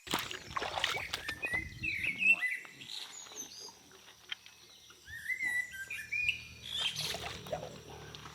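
Birds chirping with short quick calls in two bouts, about 1.5 s and 5 s in, among scattered clicks and knocks; a low steady hum comes in about 5 s in.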